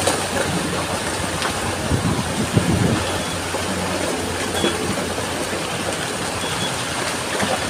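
Landslide: soil and rocks sliding and tumbling down a steep hillside, a continuous rumble with a few heavier thuds about two to two and a half seconds in.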